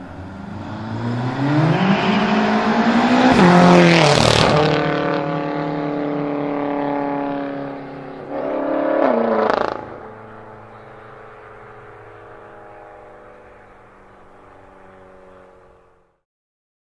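Straight-piped, twin-turbo BMW M5 F10 accelerating past, its revs climbing to the loudest point about four seconds in, then dropping and climbing again about eight seconds in before fading into the distance. The sound cuts off about a second before the end.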